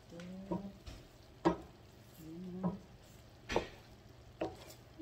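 Wooden spoon stirring thick, bubbling latik, coconut milk and brown sugar reduced nearly to a sticky syrup, in a frying pan. A soft sizzle runs under about five knocks and scrapes of the spoon against the pan, roughly a second apart.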